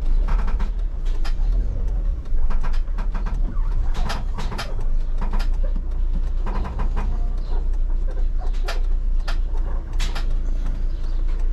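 A Ford car heard from inside the cabin while it moves slowly: a steady low rumble of the engine and road, with irregular clicks and rattles.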